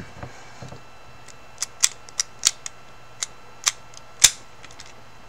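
About eight sharp, irregularly spaced clicks and taps from a Master Lock SpeedDial padlock and its packaging being handled.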